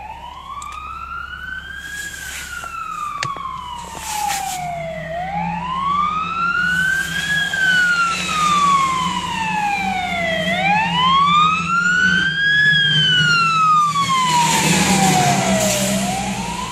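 Fire engine siren wailing, slowly rising and falling in pitch about every five seconds and growing louder as the truck approaches.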